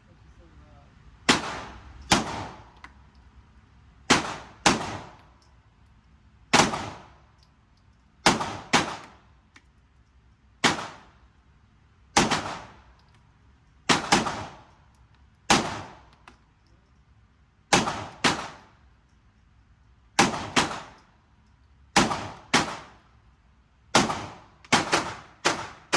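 Pistol shots from a SIG Sauer P365 Fuse, about twenty rounds fired at an uneven pace, often two in quick succession. Each crack is followed by a short echo off the range.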